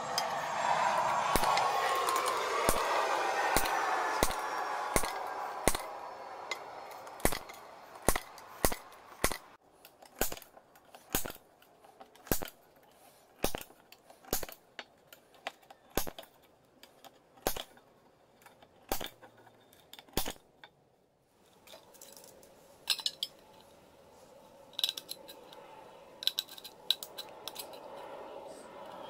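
Spring-loaded automatic center punch snapping against a tin can: a sharp metallic click roughly once a second, about eighteen times, stopping about twenty seconds in. Over the first several seconds a whirring wash with falling pitch fades away. Near the end come lighter clicks as tin snips cut the can.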